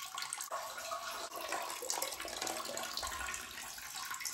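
ANZZI ENVO tankless electric toilet flushing straight from the supply line through its solenoid valve: a steady rush of water swirling through the bowl.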